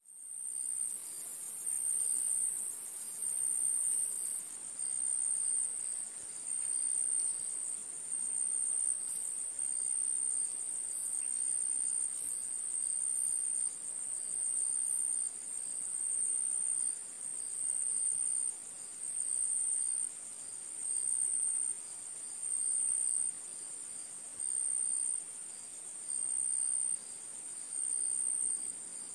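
Insects chirping in a high, steady trill that swells and fades in regular pulses about every second and a quarter.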